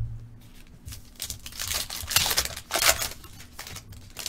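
A single thump right at the start, then the foil wrapper of a Panini Phoenix football card pack being torn open and crinkled, a run of rustling bursts lasting about two seconds.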